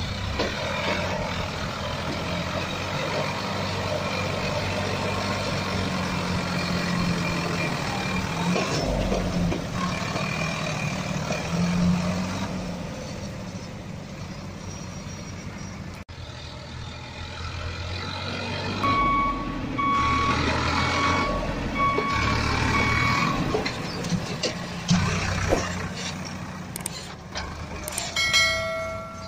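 Heavy vehicle engine running steadily, with a reversing beeper sounding a run of short, evenly spaced beeps about two-thirds of the way through.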